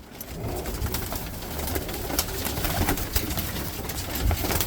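Birmingham Roller pigeons cooing in their loft, over a steady low rumble and many short clicks and rustles.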